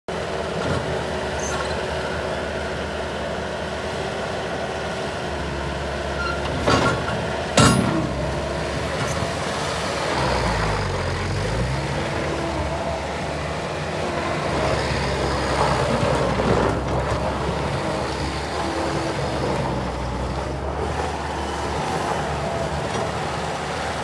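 Bobcat 773 skid-steer loader's diesel engine running steadily as the machine drives and turns, with two sharp clanks about seven seconds in. Around ten seconds in the engine pitch dips and then climbs back.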